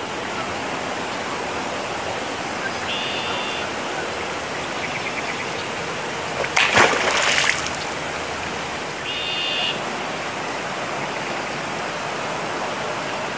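Steady rush of water around a swimming beaver, with a loud splash in the middle lasting about a second. Short high calls sound twice, once before the splash and once after.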